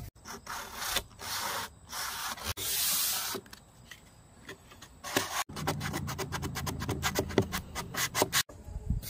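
Sandpaper rubbed back and forth by hand in the grooves of a door, a run of scratchy strokes that come quicker in the second half, sanding the door ready for paint.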